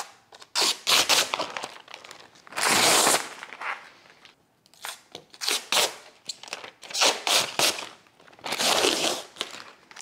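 Plastic packaging rustling and crinkling as clear plastic shelf panels are unwrapped and handled, in a series of separate bursts, the longest about three seconds in.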